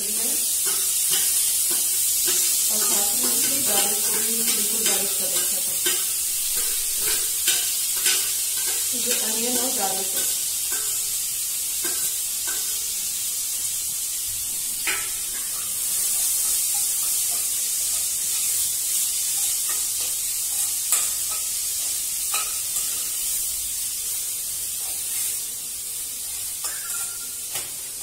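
Food sizzling steadily in hot oil in a deep pan on a gas stove while it is stirred, the spatula giving scattered light clicks against the pan. The food is being fried until golden.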